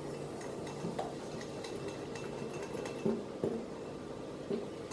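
A spoon stirring a thickening slime mixture in a bowl, with scattered light clinks against the sides.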